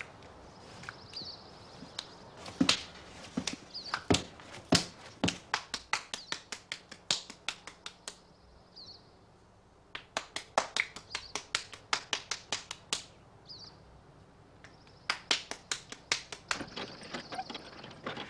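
Hands slapping and patting a lump of wet clay between the palms, in quick runs of sharp pats, several a second, broken by short pauses. A bird chirps faintly a few times.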